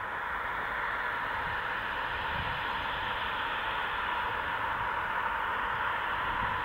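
Two-seat Eurofighter Typhoon's twin Eurojet EJ200 turbofans running at low taxi power, a steady rushing jet whine that grows slightly louder as the aircraft turns toward the listener.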